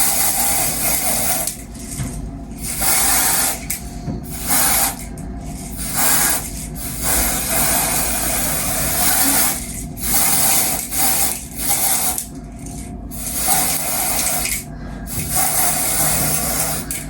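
Dola lace melting spray misted over a wig cap, hissing in a long series of bursts of about a second each with short breaks between them.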